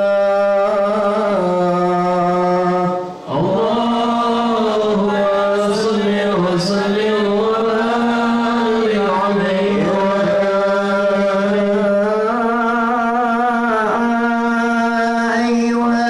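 A man's solo Islamic devotional chant sung into a microphone: long held notes with wavering ornaments, with a short breath about three seconds in.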